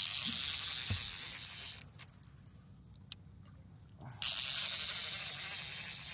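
Fishing reel's drag screaming as a hooked sturgeon pulls line off. It comes in two runs of about two seconds each, with a quieter pause of about two seconds between them.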